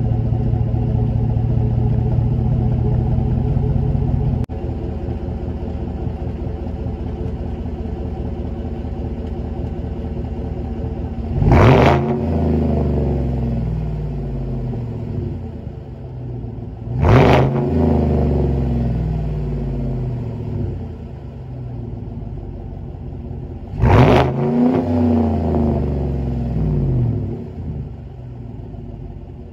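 A 2019 Chevrolet Silverado LD's engine idling through a Carven competition exhaust, heard at the tailpipe. The idle settles slightly lower about four seconds in, and then the engine is blipped three times, each rev rising quickly in pitch and dropping back to idle.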